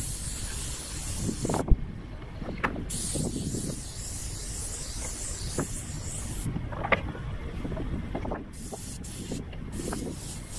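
Airless paint sprayer gun hissing in bursts as it sprays undercoat: one spray of about a second and a half, a pause, a longer spray of about three and a half seconds, then three short bursts near the end. A low steady rumble runs underneath, and a sharp knock sounds just under two seconds in.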